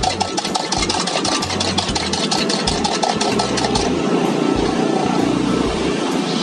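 A spoon rapidly beating eggs in a plastic cup, fast clicking strikes that stop about four seconds in, over the steady roar of a gas wok burner.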